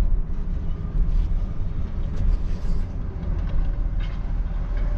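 Vehicle engine running with a steady low rumble and a few faint knocks.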